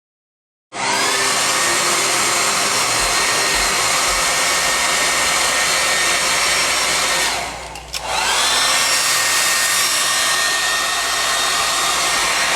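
Handheld hair dryer blowing steadily. It cuts in abruptly, dips briefly about two-thirds of the way through, then comes back at full strength.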